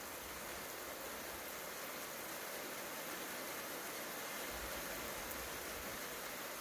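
Thunderstorm ambience: a steady, even hiss with no thunder clap.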